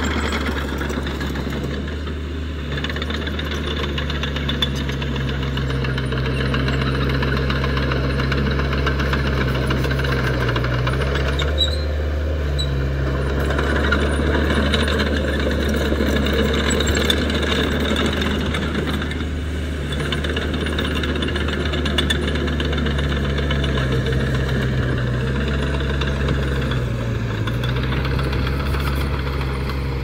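Small crawler bulldozer's diesel engine running steadily under load as the dozer pushes soil. The engine note dips and recovers briefly a few times.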